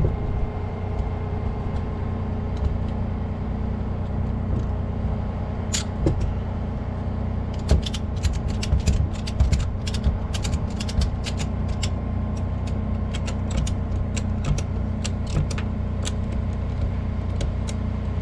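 Ratchet strap being cranked tight, its pawl clicking in an irregular run from about six seconds in, over the steady hum of an idling engine.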